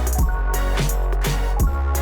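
Electronic background music with a deep sustained bass and a steady drum beat, with a heavier kick about every second and a half.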